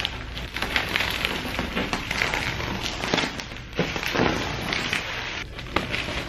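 Bubble wrap being handled and pulled off a parcel, crinkling and crackling with many sharp clicks.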